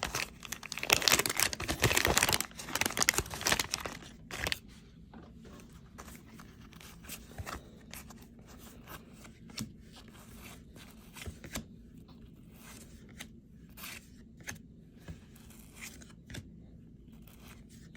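Wax-paper baseball card pack torn open, a dense crinkling rip lasting about four seconds, then light scattered clicks and ticks as the cards are handled one at a time.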